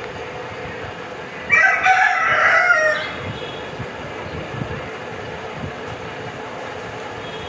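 A rooster crows once, about a second and a half in, the call lasting about a second and a half, over a steady low background noise.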